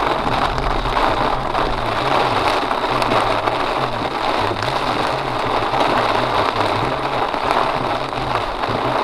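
Heavy rain pelting a moving car, heard from inside the cabin, with tyres hissing on the wet road. A low hum underneath steps up and down in pitch.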